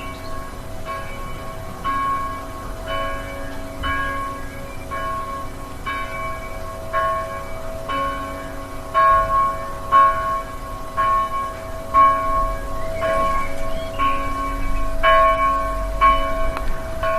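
Church bell tolling steadily, about one stroke a second, each stroke ringing on into the next.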